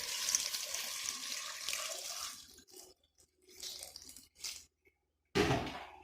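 Water running into a cooking pot of cut plantain for about two and a half seconds, then a few shorter bursts of water. Near the end comes a single loud thump.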